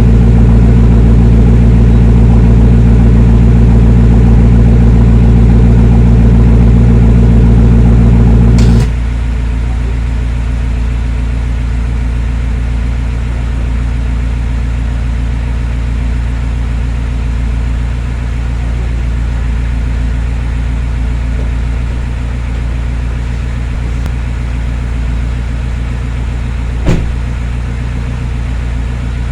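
BMW X5 M's S63 twin-turbo V8 idling at a steady, even pitch through an aftermarket titanium valved exhaust. About nine seconds in, the sound drops suddenly to a quieter, duller idle and carries on steadily, with a brief click near the end.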